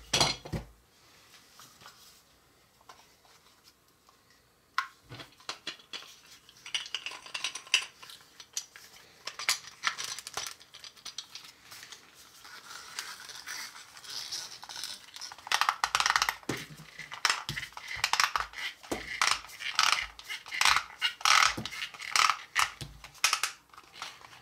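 Plastic parts of a hand-turned Play-Doh chip extruder clicking and scraping as it is put back together and twisted. The clicks come thick and fast in the second half as the screw turns and the cutter slices off chips.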